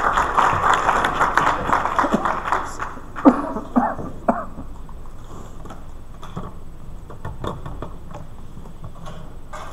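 Audience applause that dies away after about three seconds. A few short, sharp sounds follow, such as a cough or an off-microphone word, and then the quiet murmur of the hall.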